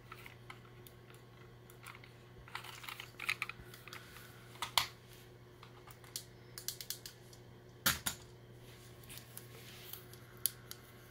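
Irregular small plastic clicks and taps from a toy being handled and fiddled with, the loudest single click about eight seconds in.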